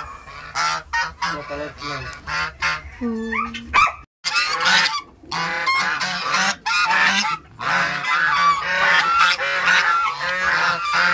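A flock of white domestic geese honking, many calls overlapping. There is a brief break about four seconds in, after which the honking is denser and nearly continuous.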